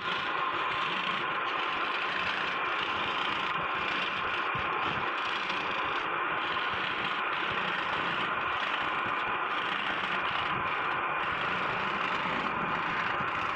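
Scroll saw running steadily, its fine reciprocating blade cutting fretwork in a wooden plate.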